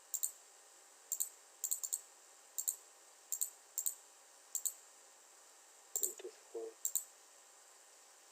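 Computer mouse button clicks, about ten, each a quick press-and-release pair, spaced irregularly as drafting commands are picked in CAD software.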